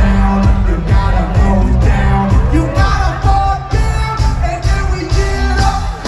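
Loud amplified live concert music from a festival stage, with a singer over a steady beat and deep bass, recorded from within the crowd.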